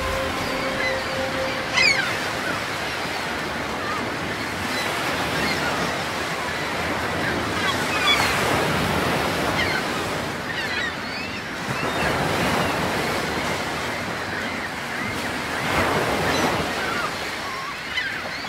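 North Sea surf breaking and washing up a flat sandy beach, swelling every few seconds. Gulls give brief high calls now and then, and a music track fades out in the first two seconds.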